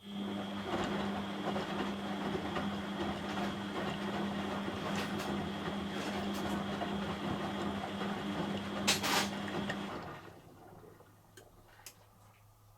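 Beko WM6255W washing machine running with a steady hum and a high whine, which stops about ten seconds in; a brief clack near the end of the run.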